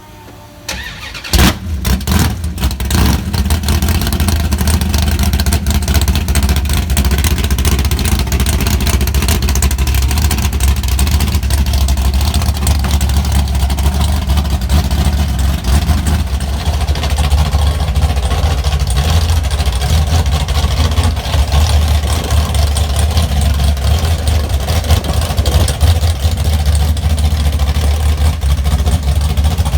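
A car engine starts with a sharp catch about a second in, then runs loudly and steadily at idle with a deep low rumble.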